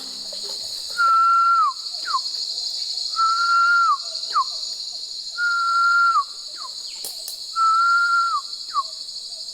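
A man whistling a call to a pavonine quetzal, four times about two seconds apart. Each call is a long held whistle that drops at its end, followed by a short downward-sliding note. Insects drone steadily underneath.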